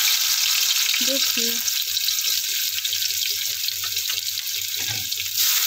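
Chopped onion frying in hot mustard oil in a steel kadhai, a steady loud sizzle that swells again near the end.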